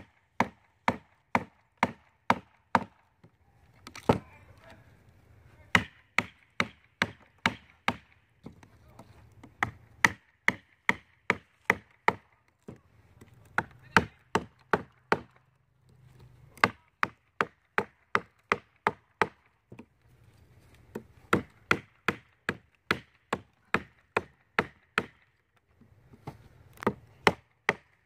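A forged 80CrV2 steel blade chopping into an oak log: sharp wooden chops, about two a second, in runs of several strokes with brief breaks between.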